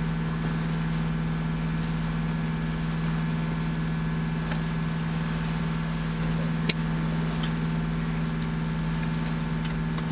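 Sailboat's inboard engine running at a steady speed under way, a constant low hum, with a single sharp click about two-thirds of the way through.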